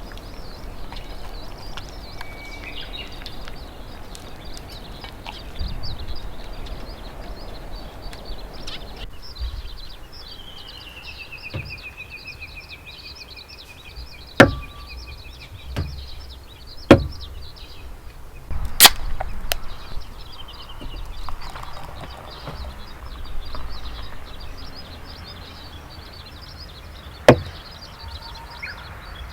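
Several sharp, hard clacks of objects being set down or knocked together, four of them loud and spread over the second half. They sound over steady outdoor ambience: a high insect chirring and, about ten seconds in, one bird's falling, warbling call.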